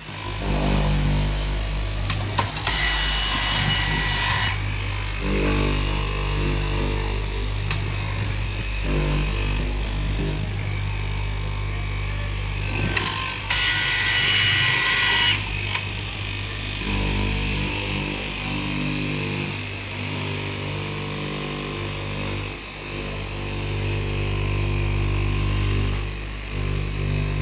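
Straight-knife cloth cutting machine running, its electric motor humming steadily as the vertical reciprocating blade cuts through a stack of denim layers. Twice, for about two seconds each, a louder and higher whine with a hiss comes in.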